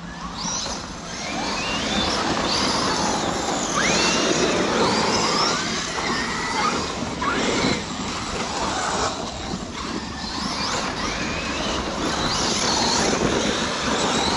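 Large electric RC off-road cars being driven, their brushless motors whining up and down in pitch with the throttle over a steady rushing noise.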